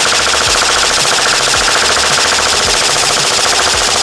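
MGC4 Mk2 airsoft electric gun (AEG) with a 25K high-speed motor firing one continuous full-auto burst: the gearbox cycles shot after shot in a fast, even rattle that does not let up.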